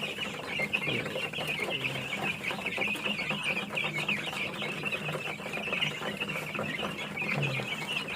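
A brood of young chicks peeping continuously, many high cheeps overlapping into a busy chatter.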